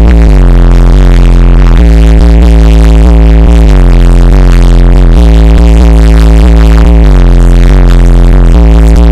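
Bass-heavy electronic music played very loud through a 12-inch Kicker CVX car subwoofer. Deep bass notes shift every second or two under a synth line, with the sound close to full level throughout.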